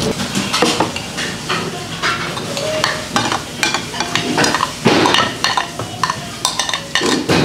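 Metal spoon scraping and clinking around the bottom of a bibimbap bowl, scooping up the last of the rice: a steady run of irregular scrapes and clicks.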